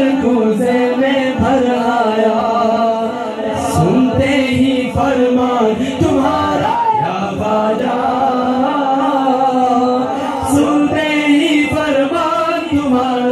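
Male voice singing an Urdu devotional qasida (naat) unaccompanied into a hand-held microphone, with long held notes.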